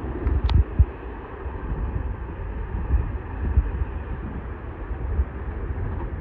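Low, uneven rumbling with irregular thumps from wind buffeting the microphone, over the faint sound of an LIRR electric train approaching in the distance.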